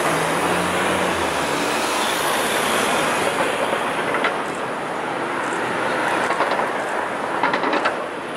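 City street traffic: a steady rumble of cars, taxis and a red double-decker bus driving past, with a few sharp clicks near the end.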